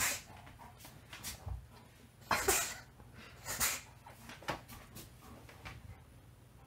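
German Shepherd picking up and mouthing a hard plastic ball, making a few short, scattered noises, the loudest about two and a half seconds in and again a second later.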